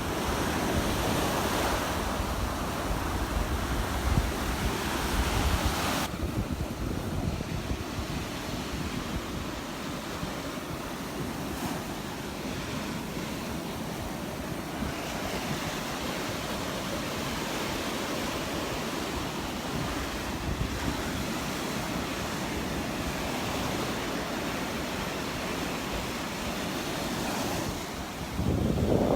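Gulf surf washing onto the beach, with wind buffeting the microphone. The rush is louder for the first six seconds, drops off suddenly, and swells again about halfway through.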